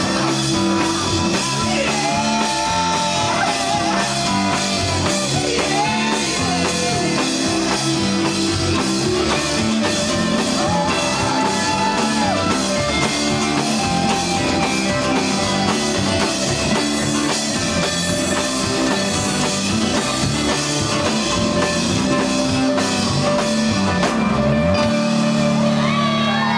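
Live rock band playing with a drum kit keeping a steady beat under electric bass and guitar. Near the end the drumming stops and a held chord rings on.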